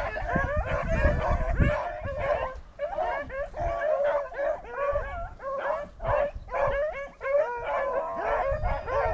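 Rabbit-hunting dogs baying and yelping in full cry, several voices overlapping without a break, running a freshly jumped rabbit.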